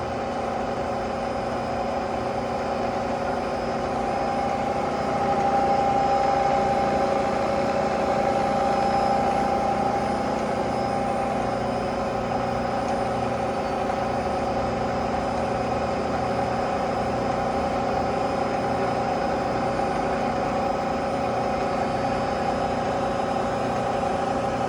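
Bridgeport Series 1 CNC vertical mill running its spindle at 2000 RPM while the axes move under program control: a steady machine hum with several constant tones, swelling a little about five seconds in and easing back a few seconds later.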